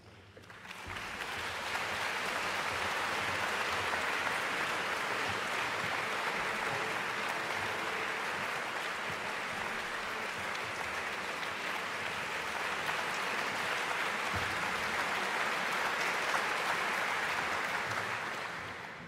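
Concert audience applauding as the soloists walk on stage. It swells up about a second in, holds steady, and dies away near the end.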